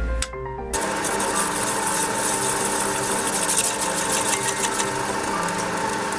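Piano-like music stops about a second in and a small metal lathe takes over, a centre drill cutting into a spinning brass disc: a steady motor whine under a high hiss of cutting.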